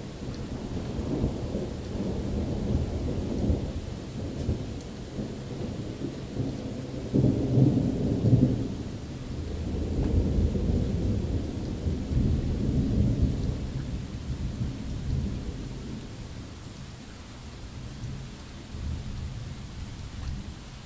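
Rolling thunder over steady rain: the rumble swells and ebbs several times, loudest about seven to eight seconds in, swells again soon after, and dies away toward the end.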